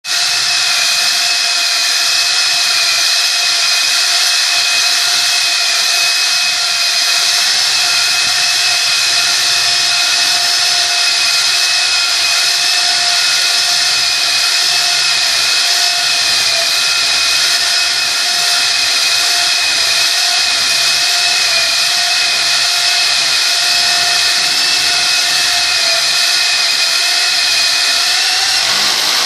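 SDS rotary hammer running with a dry core bit, cutting a hole into a wall. A loud, steady tool noise with a constant whine that holds unbroken throughout.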